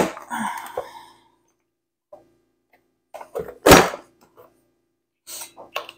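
Plastic press-down vegetable chopper being forced shut on celery: a sharp knock, then the celery crunching through the blade grid, with one loud thunk about three and a half seconds in and a few plastic clicks near the end.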